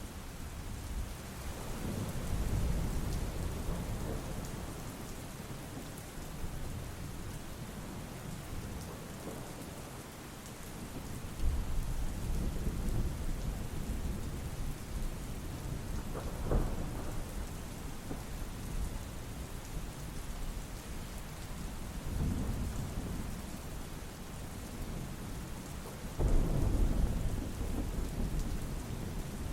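Steady rain with low rolls of thunder that swell several times, loudest near the end, and one sharp crack about halfway through.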